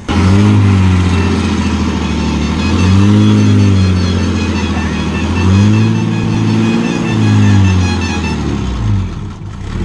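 Diesel engine of a loaded borewell drilling rig truck revving hard in repeated surges, rising and falling in pitch about four times, as the truck struggles to climb a steep ramp onto the highway.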